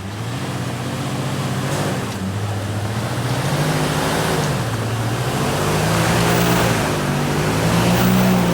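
Off-road 4x4's engine revving hard under load on a steep muddy hill climb, its pitch rising and falling repeatedly and loudest near the end.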